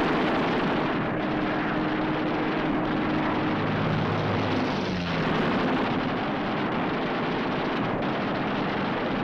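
Fighter-plane machine guns firing in a continuous rattle while strafing, mixed with explosions, over the drone of an aircraft engine.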